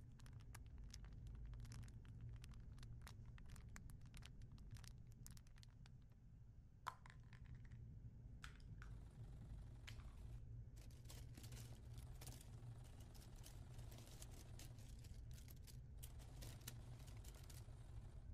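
Faint rustling and scratching of cloth being handled and a needle and thread drawn through it in hand sewing, with many small clicks and one sharper tick about seven seconds in, over a low steady hum.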